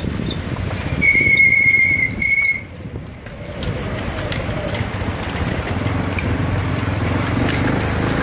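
Wind rush and motorcycle engine rumble from riding alongside a road cycling peloton. About a second in, a steady high-pitched whistle-like tone sounds for about a second and a half.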